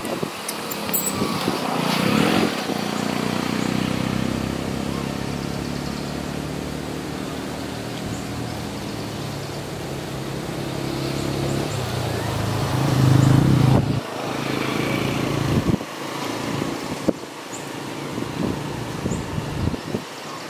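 A motor vehicle engine running by a road, growing louder to a peak about 13 seconds in and then cutting off sharply, followed by a few scattered knocks.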